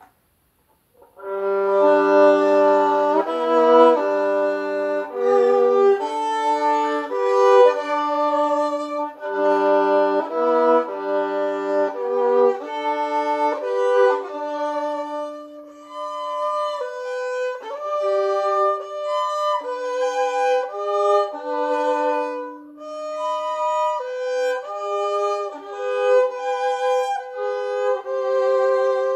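Solo acoustic violin, bowed, playing a melody of separate sustained notes that begins about a second in, some reaching down to the instrument's lowest string.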